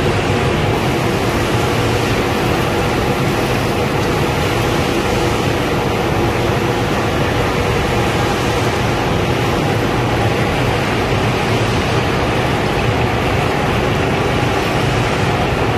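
Fried-peanut processing line running: steady machine noise from the conveyor and its motors, with a steady hum under it.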